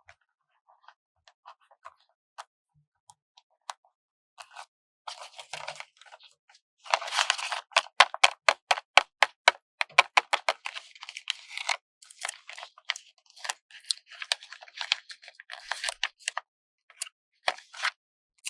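Paper sticker being peeled slowly off its backing sheet: a run of quick crackles as the adhesive lets go, densest for a few seconds in the middle, with softer scattered crackles and paper rustling around it.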